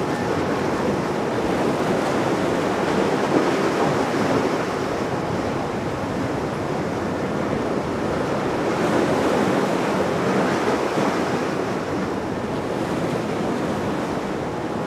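Steady rush of sea waves and wind, gently swelling and easing, with no engine note heard.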